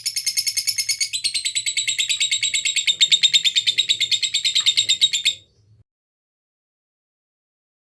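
Lovebird giving a long 'ngekek': a rapid, high-pitched chattering trill of about a dozen notes a second that cuts off suddenly about five seconds in.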